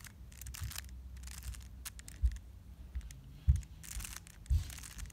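Rubik's cube layers being turned by hand through an algorithm: short bursts of plastic rasping and clicking as the faces twist, with a few sharp thumps from the cube being handled.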